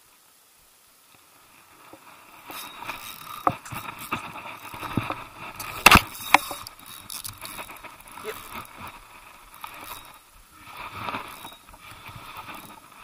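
Spinning reel being wound, a whirring rustle with clicks and scrapes of hands and gear close to the microphone. It starts after about two seconds of near silence, with a few sharper clicks about six seconds in.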